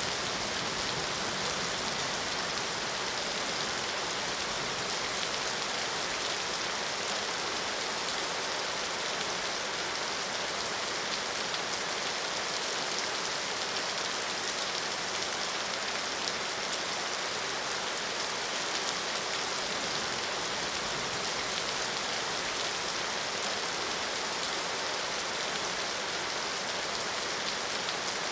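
Steady rain falling, an even hiss of drops striking a surface with fine pattering ticks throughout.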